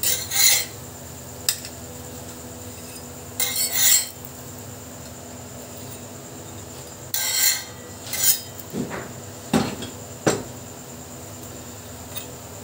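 Metal kitchen utensils and dishes scraping and clattering in short bursts a few seconds apart, then three sharp knocks in quick succession near the end.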